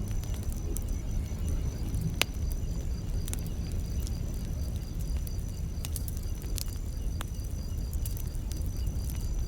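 Campfire crackling: irregular sharp pops and snaps over a low rumble of burning wood, with one loud pop about two seconds in. Insects chirp steadily in the background with an evenly pulsing high note.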